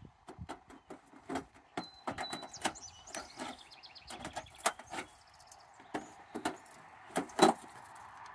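Irregular clicks, snips and knocks of tin snips working a downspout while a plastic downspout filter is pushed against it and test-fitted, some strokes carrying short squeaks. The loudest is a sharp knock near the end.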